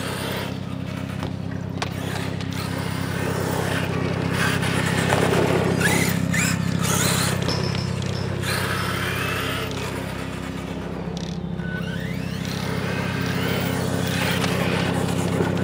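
Brushless electric RC monster truck (HPI Savage Flux) driving, its motor whine rising and falling as it speeds up and slows, with tyre and ground noise and a steady low hum underneath.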